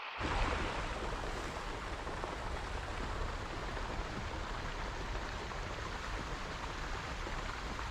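Steady rushing of falling or flowing water, a full even roar with a deep low rumble, such as a waterfall or fast stream.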